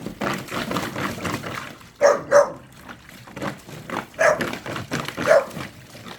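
A dog barking: two short barks in quick succession about two seconds in, then two more single barks a couple of seconds later.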